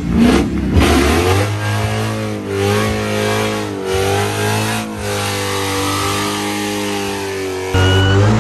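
Dodge Hellcat's supercharged 6.2-litre Hemi V8 revving up hard, then held at high revs during a smoky burnout on the rear tyres. The pitch rises in the first second, then holds nearly steady with small dips, and it gets louder near the end.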